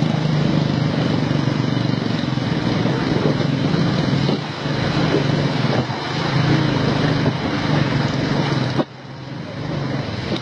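Royal Enfield Classic 350 single-cylinder engine running at low speed as the motorcycle picks its way over a rough, wet road, with wind on the microphone. The sound drops abruptly and becomes quieter about nine seconds in.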